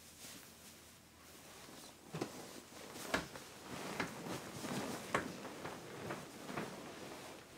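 Clothing and bedding rustling as two people move about on a bed, with several short sharp sounds roughly a second apart through the middle.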